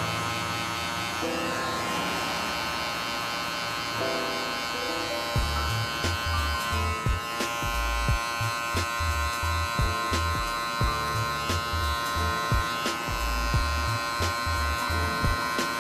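Cordless hair clipper running with a steady buzz while cutting a fade near the ear. Background music plays under it, and its pulsing bass beat comes in about five seconds in.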